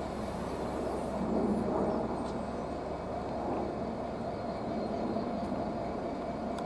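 A train running with a steady, even rumble that swells slightly about a second and a half in.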